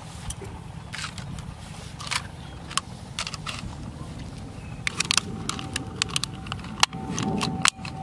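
Wire fan guards and their plastic centre hubs being handled: scattered light clicks and rattles, coming thicker in the second half, over a steady low rumble of wind on the microphone.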